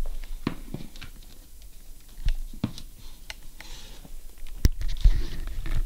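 Scattered clicks, taps and knocks of hands handling a power cable and a plexiglass LED racetrack display on the floor, with one sharp click about four and a half seconds in.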